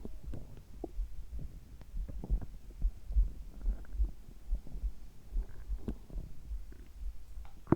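A person's heartbeat and stomach gurgles heard together up close: a steady low heartbeat thump runs under short, scattered gurgles of the gut, with one sharp knock right at the end.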